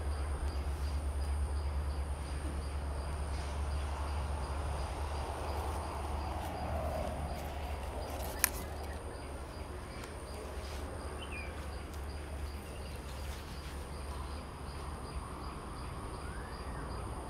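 Outdoor ambience: a steady low rumble with a faint hiss, one sharp click about eight seconds in, and a faint bird chirp a few seconds later.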